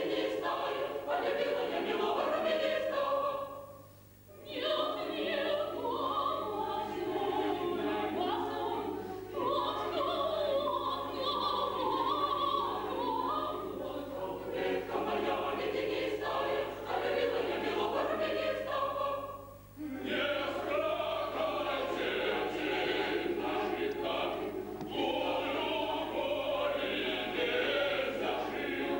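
Mixed choir singing, the sound breaking off briefly twice between phrases: about four seconds in and again near twenty seconds.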